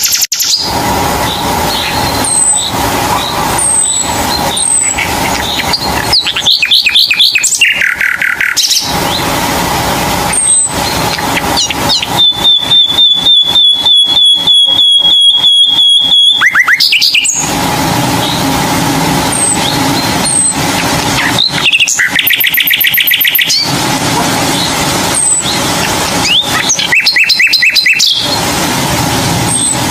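Birds singing and calling: a run of short chirps and fast trills, with one long, even, rapid trill lasting about four seconds near the middle.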